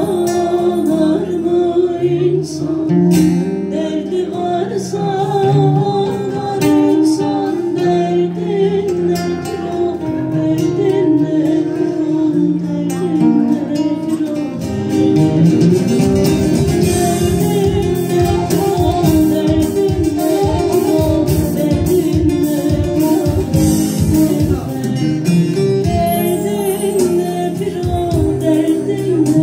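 Live Turkish folk song: a woman singing into a microphone over an acoustic guitar and a bağlama (long-necked lute). About halfway through, the strummed rhythm becomes denser.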